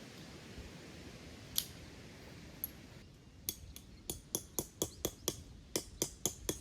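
A quick run of about a dozen sharp clicks, three or four a second, starting about three and a half seconds in, over a faint steady background noise.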